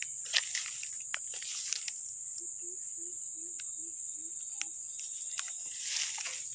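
Footsteps crackling through dry grass and brush against a steady high insect drone. In the middle comes a run of about eight short, low, evenly spaced calls from an animal in the distance.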